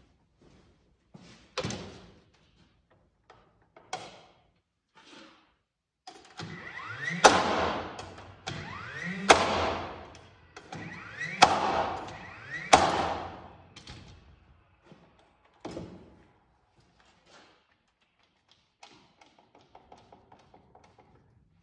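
Cordless framing nailer driving four nails into the wooden truss, each shot a loud sharp crack with a whir around it, ringing off the metal walls of the arched building. Lighter knocks of lumber being handled come first, and a quick run of small clicks from a bar clamp being squeezed comes near the end.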